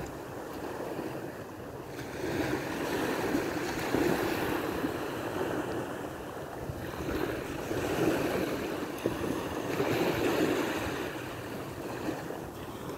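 Small waves washing onto a sandy beach, the surf swelling and easing every few seconds, with some wind on the microphone.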